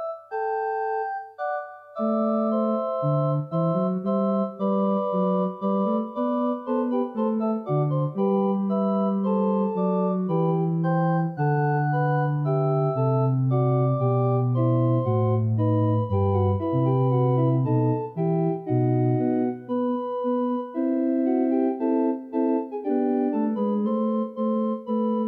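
Pipe organ playing held chords, with a bass line coming in about two seconds in and moving under the upper parts.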